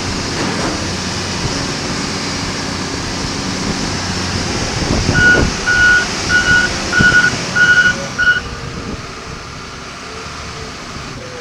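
John Deere 544K wheel loader's diesel engine running, with its backup alarm beeping six times about halfway through as the loader reverses. After the beeps the engine runs more quietly.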